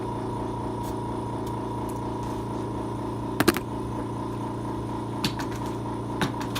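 A steady mechanical hum, with a few sharp metallic clinks of tools: two or three close together about halfway through, then single ones near the end.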